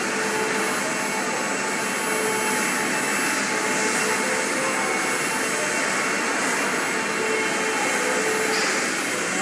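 A CNC router's 13.5 kW air-cooled spindle running at speed: a steady rushing noise with faint tones above it.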